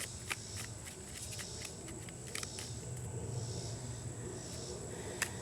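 Tarot cards being handled: a few light clicks and snaps over a steady low hum.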